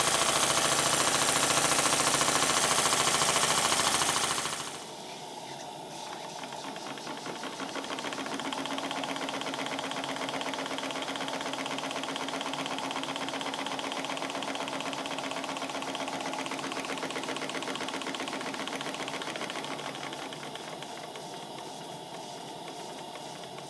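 Model horizontal steam engine running on live steam, with a loud hiss of steam escaping around its leaking steam chest, whose cover bolts have stripped threads. About five seconds in the hiss drops away, leaving the engine's quieter, fast, even beat with the leaking steam piped off.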